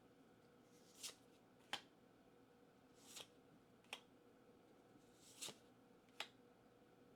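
Pokémon trading cards being flipped through one at a time by hand: a soft swish of a card sliding, then a sharp click, three times about two seconds apart.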